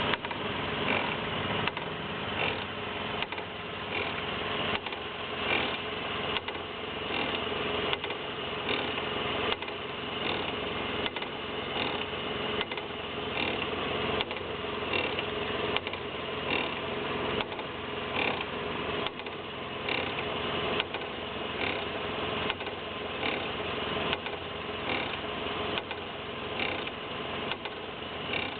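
Toyota Echo's brakes making a repeating rub-like noise under gentle braking, pulsing roughly once a second over a steady hum. The noise goes away under heavy braking.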